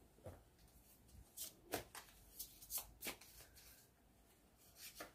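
A deck of divination cards shuffled by hand: faint, irregular flicks and slaps of cards sliding over one another. They come mostly between about one and three seconds in, with a couple more near the end.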